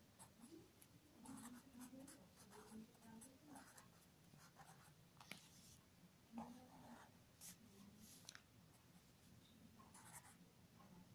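Faint scratching of a felt-tip pen on notebook paper, in short irregular strokes with pauses between them.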